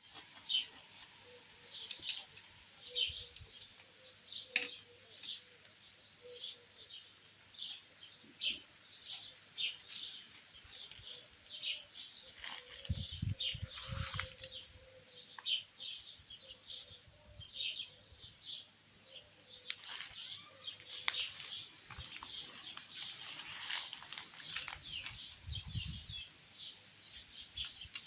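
Small birds chirping, many short high chirps repeated throughout, with two brief low rumbles, one midway and one near the end.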